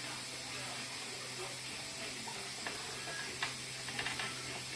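Steady faint hiss with a few light metallic clicks and scrapes between about three and four seconds in, as a stuck, heated vise mounting bolt is worked loose with a wrench.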